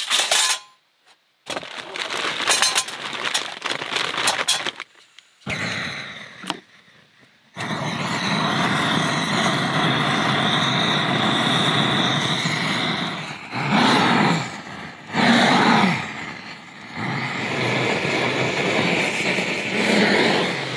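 Clicks and metal rattles as a stainless charcoal grill box is handled and set up, then, about a third of the way in, a gas blowtorch starts a steady, loud hissing rush of flame as it lights charcoal briquettes, dropping and swelling a few times as the torch is moved.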